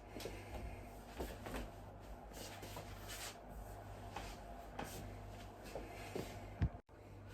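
Joints being cracked by hand: rubbing and shifting of skin and clothing with scattered small clicks, then one sharp crack with a low thud about six and a half seconds in.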